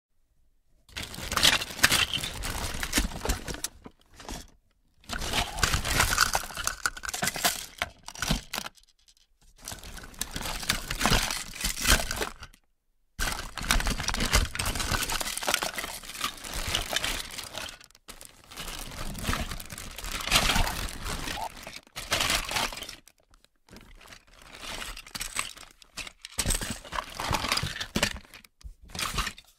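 Plastic toys in a box being stirred and shaken, a jumbled clattering and rattling of hard plastic pieces knocking together. It comes in bursts of a few seconds, with short pauses between them.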